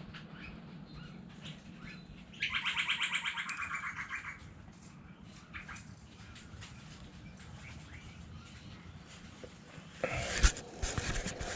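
A bird's rapid chattering call, about two seconds long, over a faint steady hum. Near the end come a few clicks and rustles.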